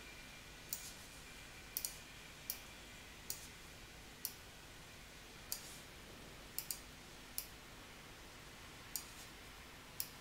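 Computer mouse button clicking, about ten sharp separate clicks at irregular intervals, twice as a quick double click, over faint background hiss.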